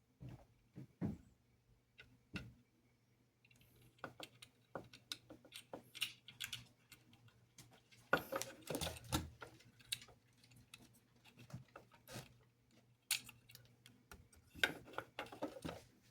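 Irregular light clicks, taps and rattles of small plastic model-locomotive parts and wires being handled, over a faint steady low hum.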